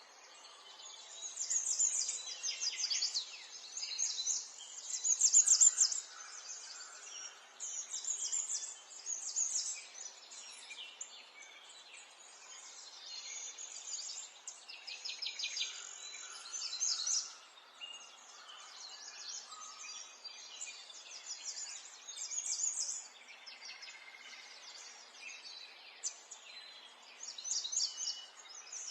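Many small songbirds chirping and twittering together, rapid overlapping phrases coming in bursts every second or two over a faint background hiss.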